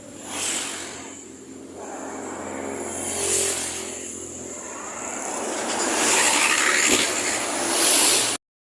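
Road traffic passing close by: vehicle noise swells and fades about three times, loudest in the last two seconds, then cuts off suddenly.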